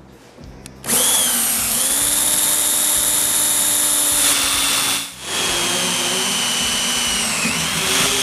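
Power drill with a long bit drilling out rivet holes through an aluminium snowmobile foot-tread board and its support bracket. The motor starts about a second in and runs at a steady whine, its pitch dipping twice; it stops briefly about five seconds in and starts again.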